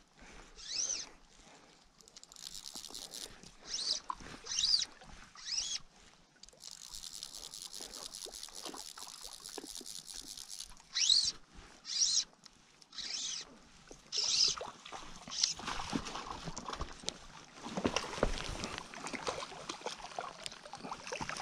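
Fly-fishing tackle while a hooked cutthroat trout is played in. Fly line is stripped in with short, repeated zips. A click-and-pawl fly reel ratchets steadily for about four seconds in the middle. Near the end the trout splashes at the surface.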